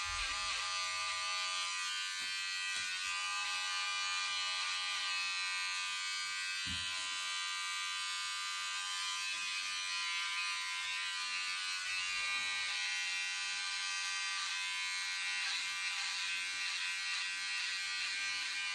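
Cordless electric hair clippers running with a steady buzz as they are passed through a man's hair.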